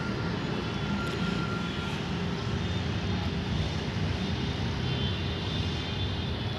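A steady low rumble of engine noise, with faint thin whining tones above it.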